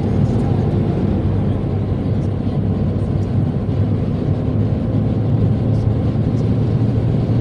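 Steady low rumble of a moving vehicle's engine and tyres on the road, heard from inside the cabin.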